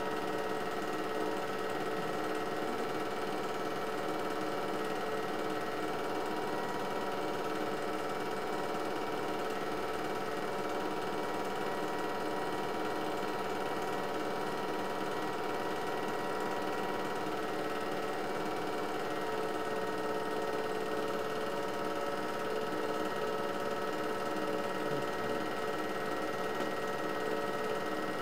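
8mm film projector running: a steady mechanical whir with a fast, even clatter that does not change.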